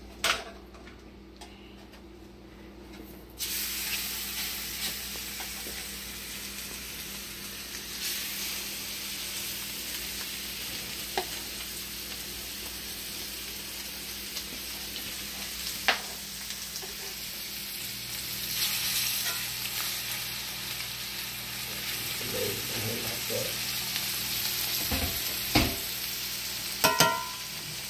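Seasoned chicken breasts frying in butter in a cast iron skillet: a steady sizzle that starts suddenly about three seconds in as chicken goes into the hot pan, with a few sharp clicks.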